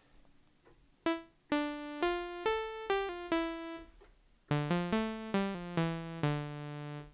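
Nunomo Qun mk2 synthesizer playing single monophonic notes, each with a sharp attack and a quick decay from its amplitude envelope. A run of about seven notes is followed by a short pause, then a lower run that ends on a held note which stops suddenly.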